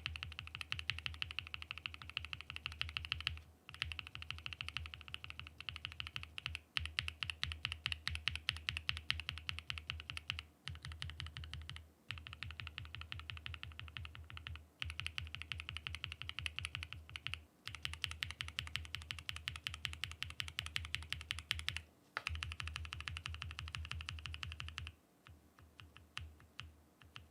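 Mechanical keyboard, a Mode SixtyFive with a POM plate, typed on fast in runs of a few seconds with brief pauses between them. Near the end there are only a few scattered, quieter key clicks.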